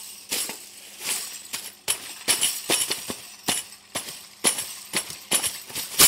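Repeated sharp, bright metallic clinks and jingles at an uneven pace of about two a second, over a light hiss.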